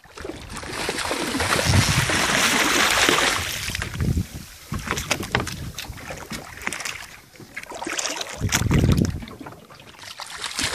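Wind buffeting the microphone over sea water splashing as a hooked shark thrashes at the surface beside the boat. There are loud gusts about two seconds in and again near the end, with scattered sharp splashy crackles in between.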